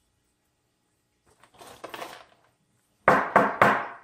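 Coffee beans rattling in a dosing cup as a few are tipped out to trim the dose. There is a soft rattle about a second and a half in, then three loud, sharp rattles in quick succession near the end.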